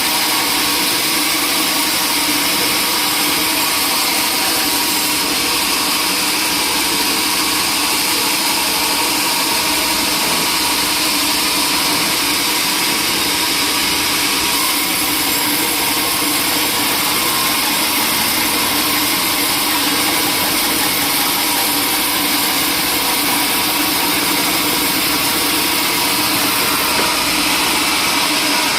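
Sawmill machinery running steadily: an even, unbroken machine noise.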